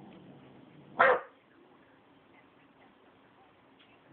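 A 12-week-old Rottweiler puppy barks once, a single short bark about a second in.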